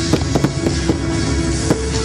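Aerial fireworks shells bursting: several sharp bangs spread across the two seconds, heard over loud, steady music.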